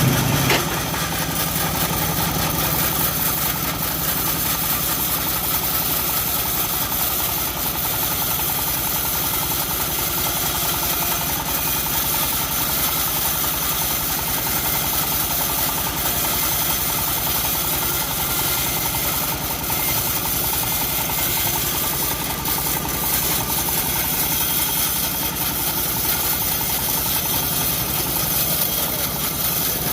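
Engine of a homemade bandsaw mill running steadily, with no change in speed.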